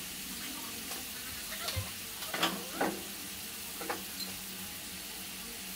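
Chopped onions, tomatoes, peppers and beef frying in oil in a shallow nonstick griddle pan: a steady sizzling hiss, with a few short, sharp clicks in the middle.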